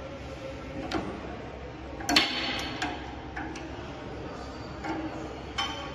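Metal clicks and clinks of a hex key working the bearing mount on a portable line boring machine's boring bar, with one louder, ringing clank about two seconds in.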